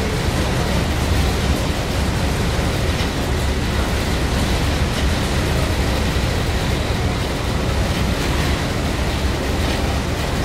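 Steady rumble and rushing noise aboard a boat under way across the harbor. The level stays even throughout, with no thunderclap.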